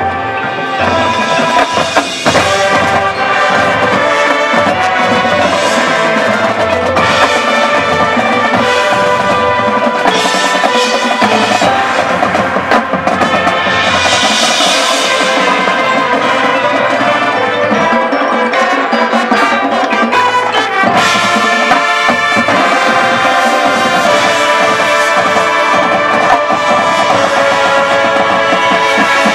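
High school marching band playing a loud field-show passage: brass sustaining chords over the drumline.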